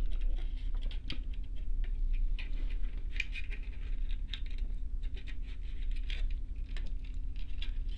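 Small irregular plastic clicks, taps and scratches of a model steam locomotive's tender shell and its wiring being handled, as a decoder harness connector is fished through the opening in the front of the shell.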